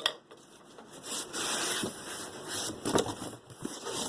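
Packaging rustling with a few short clicks and knocks as a Vitamix blender's container and tamper are unpacked and handled; the knocks bunch up about three seconds in.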